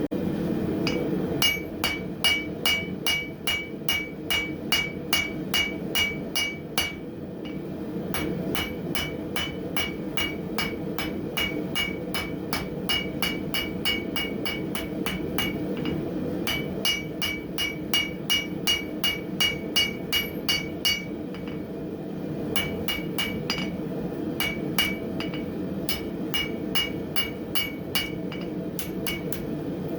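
Hand hammer striking hot spring steel on an anvil, about two blows a second in runs of several seconds with short pauses, each blow leaving a bright metallic ring. The forge runs underneath as a steady low rumble.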